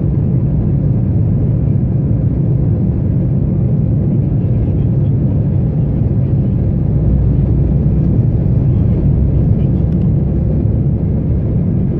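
Cabin noise of an Embraer 190 on its takeoff roll, heard from a window seat over the wing: its GE CF34 turbofans at takeoff power, a steady, loud, low roar.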